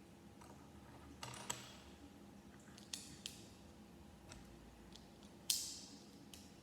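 Plastic Lego bricks being handled and clicked together: a short rattle of pieces about a second in, two small clicks near the middle, and a sharper snap near the end.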